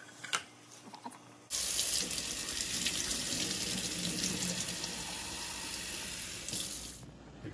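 Kitchen faucet running steadily onto a raw whole chicken held over a stainless steel sink, the water coming on about a second and a half in and shut off near the end. A few light knocks come before it.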